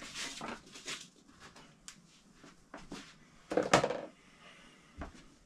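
Handling noises from objects being moved around a workbench: scattered light clicks and rustles, with a louder clatter about three and a half seconds in.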